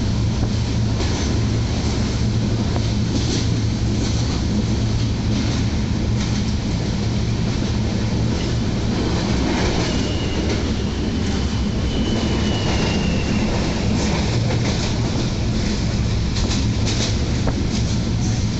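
Passenger train in motion, heard from inside a coach: a steady rumble of wheels on track with clatter over the rails and a low constant hum. There is a thin, high wheel squeal around the middle, and sharper clicks from the rail joints near the end.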